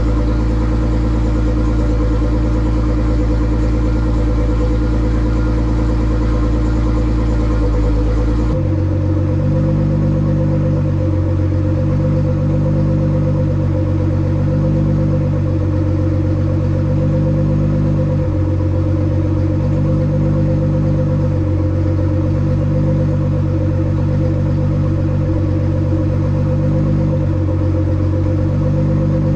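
Tuned Nissan GT-R R35's twin-turbo 3.8-litre V6 idling steadily. About eight seconds in the sound changes abruptly, and the idle then swells and eases slowly and regularly.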